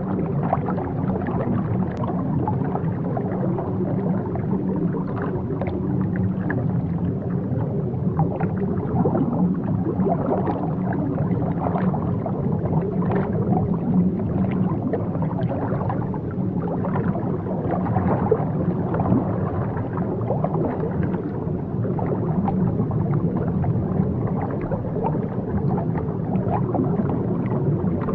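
Steady low underwater rumble with bubbling and gurgling water.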